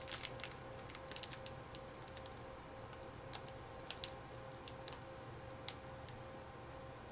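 Light, irregular clicks and taps of small computer hardware being handled: a hard drive, its metal drive cage and mounting screws. A cluster of clicks in the first second or so, then a few scattered ones, over a faint steady hum.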